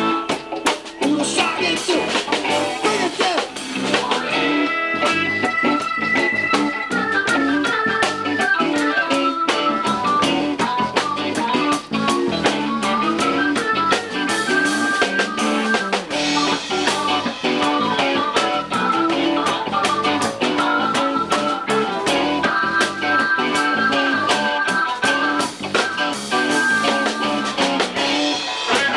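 Live band playing with electric guitar, keyboard and drums, an instrumental passage with a melodic lead line running from about four seconds in over steady drum hits.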